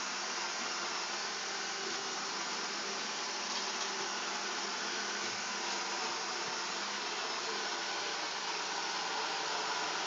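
Original iRobot Roomba robot vacuum running, a steady hiss of its vacuum and brushes with a faint low hum underneath.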